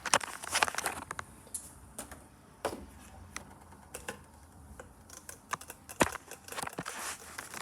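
Scattered light clicks, taps and rustles of small objects being handled and set down, with a sharper knock about six seconds in.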